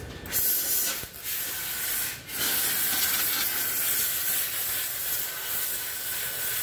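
Compressed air hissing in a steady stream from a long-nozzle air wand, with two brief breaks about one and two seconds in, cutting off sharply at the end.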